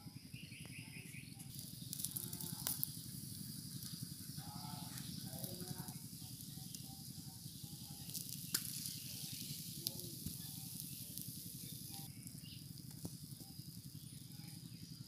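Meat roasting on a bamboo spit over embers: a steady hiss and sizzle with scattered sharp crackles and pops, the loudest about three and eight seconds in.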